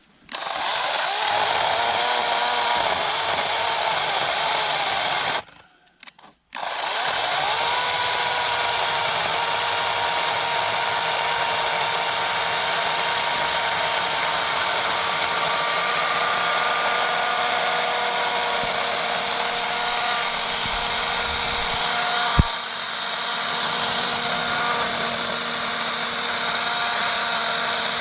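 Battery-powered 40-volt electric chainsaw running at full speed with a steady high whine as it cuts wood. It stops about five seconds in, starts again a second later and runs on, with a single sharp knock near the end.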